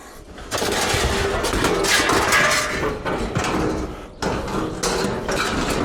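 Continuous clattering and rattling of loose scrap metal. It starts about half a second in, breaks off briefly about four seconds in, then resumes.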